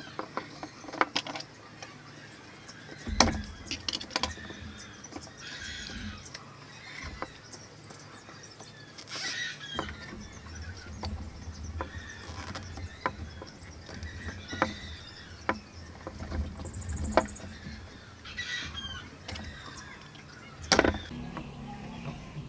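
Light clicks and knocks as gloved hands fit small parts to a wooden block on a PVC-pipe frame, with a few short squeaks, a louder knock about three seconds in and another near the end.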